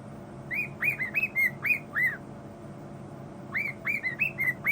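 Pet bird whistling two quick runs of short, chirpy notes that rise and fall, with a pause of about a second and a half between the runs.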